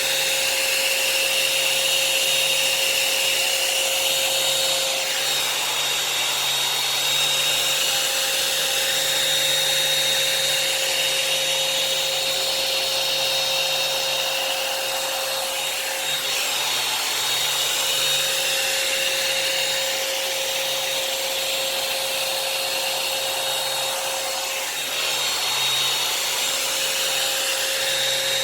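Revlon hot-air dryer brush running on its low setting: a steady fan whir with a constant whine, as it is pulled through damp hair in repeated passes.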